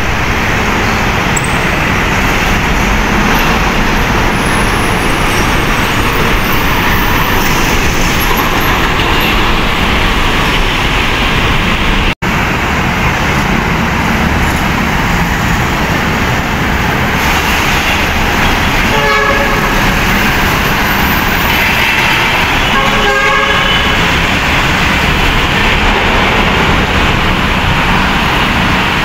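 Steady city road traffic: engines and tyres of trucks, cars and motorcycles passing close by. Past the middle a vehicle horn sounds twice, a few seconds apart, each time as a quick string of short beeps.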